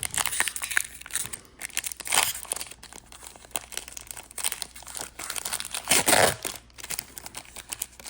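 Foil wrapper of a Disney Lorcana booster pack being torn open and crinkled, with crackling rustles that peak about two seconds in and again around six seconds.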